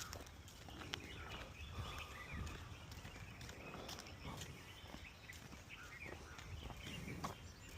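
Faint outdoor ambience: small birds chirping at a distance, scattered footstep clicks and a low wind rumble on the microphone.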